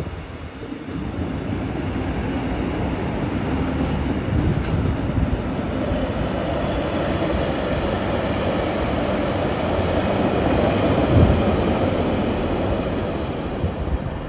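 Freight train hauled by an EF510 electric locomotive rolling through the station: a steady rumble of wheels on rail that swells slightly about ten seconds in.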